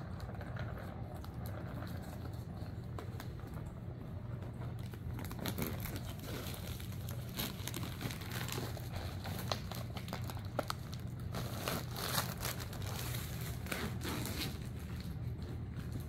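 A cat pawing at and biting crinkly toy packaging: an irregular run of rustling and crackling that gets busier about five seconds in.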